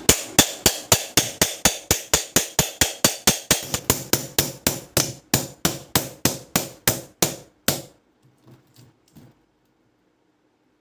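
A rapid run of sharp, regular knocks, about three to four a second, that slow slightly and stop about eight seconds in.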